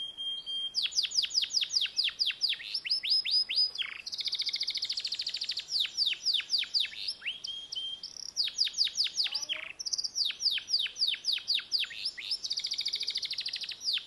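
Domestic canary singing a continuous song of repeated phrases: runs of quick falling whistled notes, about four or five a second, alternating with fast rolling trills.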